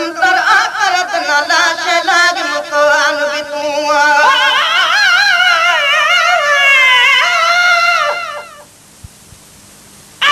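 A voice singing a Sindhi devotional naat with heavy vibrato, rising into a long, wavering melismatic line that fades out about eight and a half seconds in, followed by a short quiet gap.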